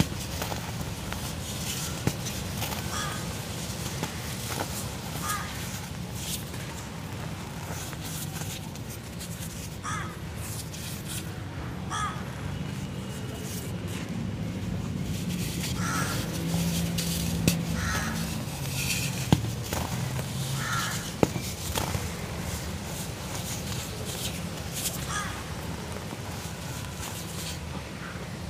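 Dry grey cement crumbled and rubbed between the fingers: gritty crunching and scraping with scattered sharp clicks. Short harsh bird calls, like a crow's caw, repeat in the background.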